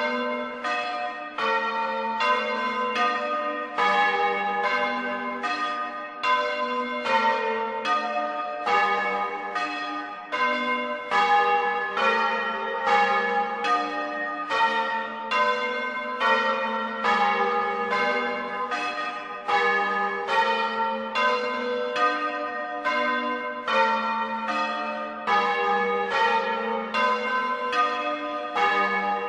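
Bronze church bells rung in the Bolognese style, several bells of different pitches struck in quick succession, about two strokes a second, each ringing on over the next.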